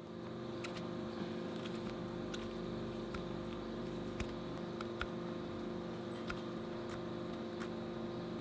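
A motor running steadily, a constant hum, with scattered light clicks and taps on top.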